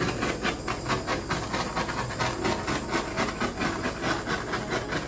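Handheld butane torch flame hissing steadily, swelling and fading a few times a second.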